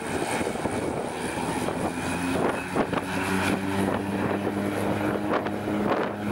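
DHC-6 Twin Otter's two turboprop engines and propellers running as the aircraft rolls along the runway: a steady propeller drone, with low steady tones coming in about halfway through.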